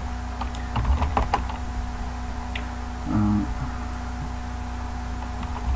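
Computer keyboard typing: a quick run of keystrokes about a second in, over a steady low hum.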